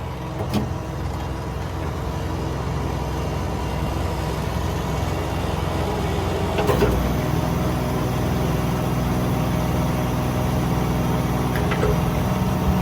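Engine running steadily at a constant speed, with a sharp clack about half a second in and a heavier clunk about seven seconds in.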